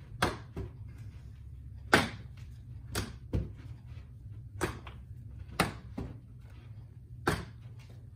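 Balls smacking into a fielder's glove as they are caught, a sharp pop about every one to one and a half seconds, some followed quickly by a smaller second knock. A steady low hum runs underneath.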